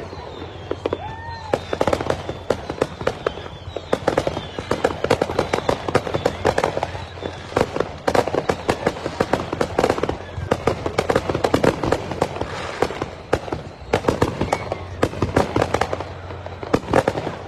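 Fireworks display: aerial shells and effects going off in a rapid, unbroken string of bangs and crackles, many a second.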